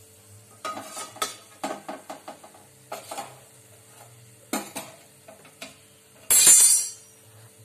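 A metal slotted spoon clinks and scrapes against a steel pan and plate as a deep-fried champakali pastry is lifted out of the oil and set down, in a run of short knocks. About six seconds in there is one brief, loud hiss.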